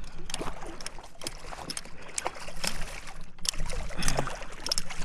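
Water splashing as a hooked redfish thrashes at the surface beside a kayak during the fight, with irregular sharp splashes and knocks.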